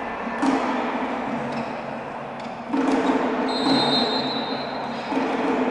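Echoing sports-hall noise with three heavy thuds that ring on in the hall, and a referee's whistle blown once for about a second and a half just after the middle.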